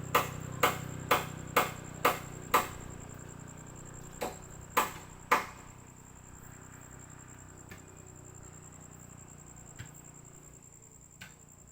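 Repeated sharp blows of a hand tool striking wood or bamboo on a building site. They come about two a second for the first couple of seconds, then three more blows a little later, then a few faint, scattered knocks.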